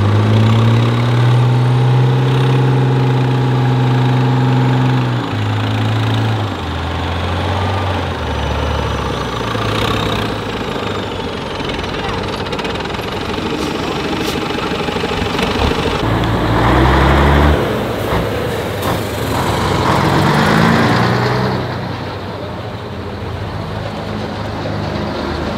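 Diesel engine of a 6x6 trial truck. It holds steady revs for about five seconds, drops in steps, then revs up twice in the second half.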